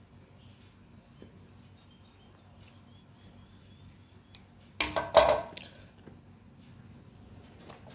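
Handling noises from unboxing a phone: for several seconds only faint ticks as a snap-off utility knife slits the box's seal stickers, then about five seconds in a brief cluster of loud knocks and scraping as the knife is put down on the wooden table and the box is handled, and a shorter scrape near the end.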